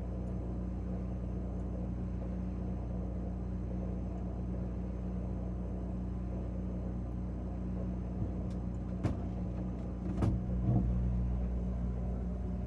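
Steady low hum of a refrigerator's compressor, with a few knocks about nine and ten seconds in.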